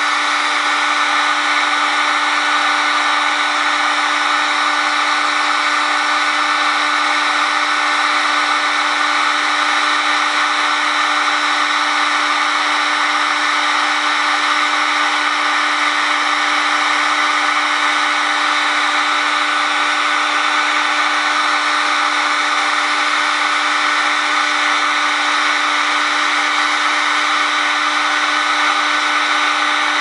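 Electric heat gun running steadily, its fan blowing hot air as an even rushing noise with a constant hum, shrinking sealant-lined heat-shrink tubing over a soldered wire splice.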